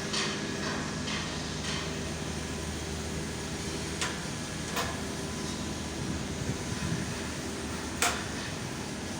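Strong wind rushing over the microphone at height, a steady noise with a faint low hum under it. A few sharp knocks cut through, about four seconds in and a louder one near the end.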